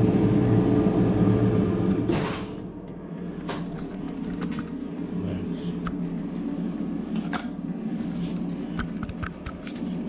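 COSORI air fryer's fan running with a steady hum, louder for the first two seconds and then softer. Scattered light clinks and knocks of a plate and cutlery sound over it.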